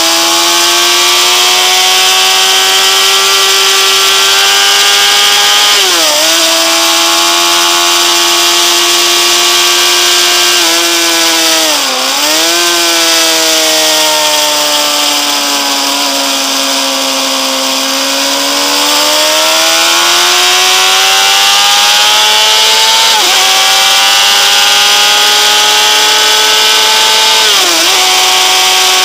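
Honda CBR600RR's inline-four engine running at high revs under hard acceleration, heard from on board with wind rushing past. The pitch drops sharply at quick gear changes, about four times. It sags more slowly through a long corner, then climbs again.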